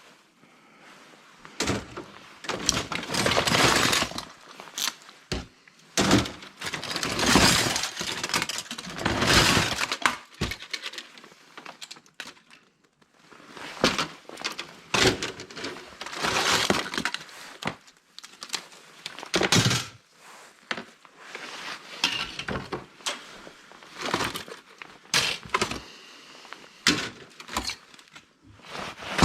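Scrapped laptop parts being pulled apart and sorted: repeated cracking of plastic casing and clattering of pieces, in bursts of a second or two with sharp clicks between.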